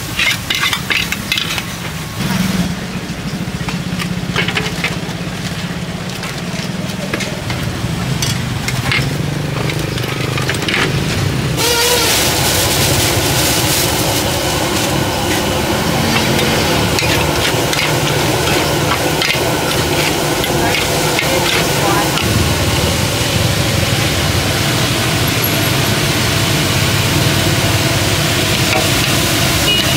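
Metal ladle and spatula scraping and clanking against a large wok as noodles are stir-fried. About twelve seconds in, a sudden loud sizzle starts as liquid is poured into the hot wok over bean sprouts. The sizzling and scraping carry on as rice vermicelli is stirred through.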